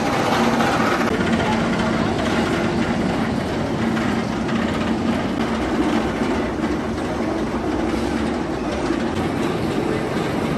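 B&M inverted roller coaster train being hauled up the chain lift hill: a steady mechanical clatter of lift chain and track, with a low hum underneath.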